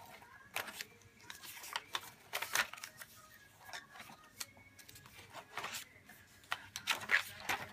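Paper pages of a spiral-bound journal being turned one after another, each turn a short swish or flick of paper.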